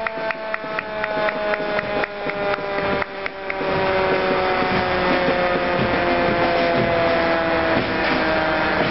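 Approaching fire engine: a siren tone falling slowly in pitch, over a rapid regular clicking that stops about three and a half seconds in, after which a steady rumble fills in.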